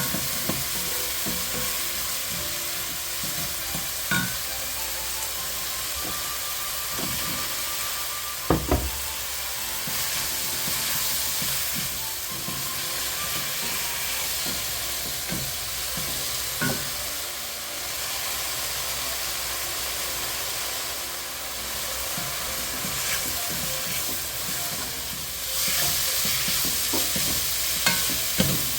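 Food sizzling in oil in a frying pan while being stirred, with scattered knocks of the utensil against the pan; one knock about eight seconds in is the sharpest, and the sizzle grows louder near the end.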